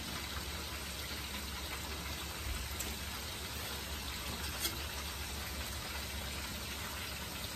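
Steady sizzling of food frying in hot oil in pans on the stove, with a couple of faint clicks.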